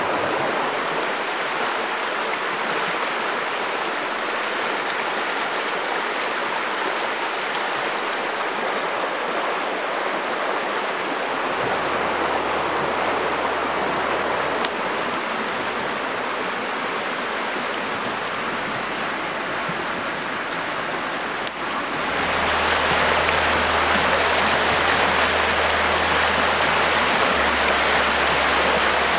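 Fast river water running over rapids, a steady rushing hiss that gets louder at a cut about three-quarters of the way in.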